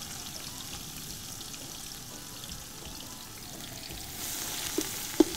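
Chopped onions frying in hot oil in an aluminium pot: a steady sizzling hiss that swells about four seconds in as more onion goes in. Two sharp knocks come near the end.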